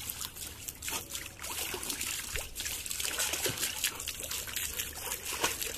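Garden hose stream pouring into a shallow paddling pool and over wet dogs standing in it, a steady trickling splash of water.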